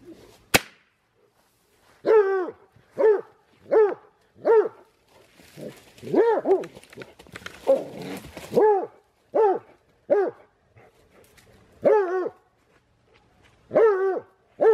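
Black and tan coonhound barking: short barks about one every 0.7 seconds, in runs of several with short breaks. Before the barking there is a single sharp crack about half a second in.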